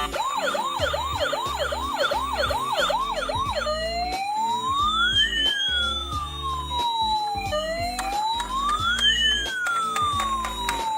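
Electronic emergency-vehicle siren: a fast yelp of about two and a half sweeps a second, which switches after about three and a half seconds to a slow wail that rises and falls twice. Background music plays underneath.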